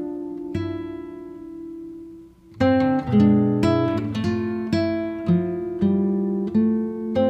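Background music on acoustic guitar: plucked notes ringing out and fading, with a short lull about two and a half seconds in before the picking picks up again.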